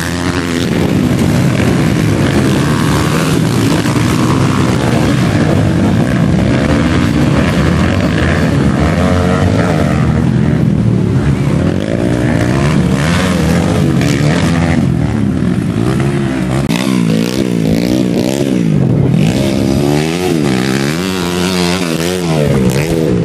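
Several motocross dirt bikes racing, their engines revving hard with the pitch climbing and dropping as riders open and close the throttle and shift gears. The overlapping revs swing up and down more quickly in the second half.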